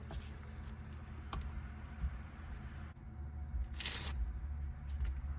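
Scattered light clicks and handling noises over a steady low hum, with a short rustling swish about four seconds in.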